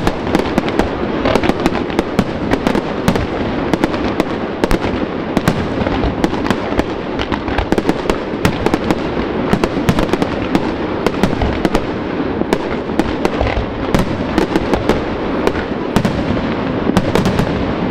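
Fireworks display: aerial shells bursting in a dense, unbroken barrage of bangs and sharp cracks.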